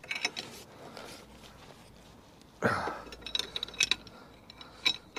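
Steel combination spanner working the brake caliper carrier bolts on a van's front hub as they are nipped up tight. A heavier clunk comes about two and a half seconds in, followed by a quick run of sharp metallic clicks and clinks, and two more clinks near the end.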